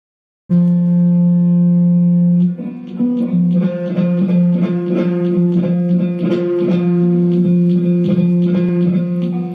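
Electric bass guitar strings sounding as a cat licks and rubs its face on them: a held note starting suddenly about half a second in, then a jumble of irregular plucked notes ringing over one another.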